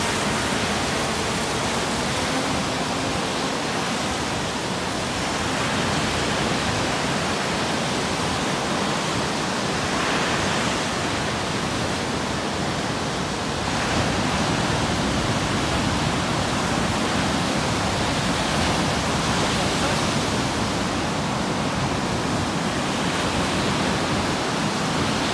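Steady rushing noise of surf breaking on the beach, getting a little louder about fourteen seconds in.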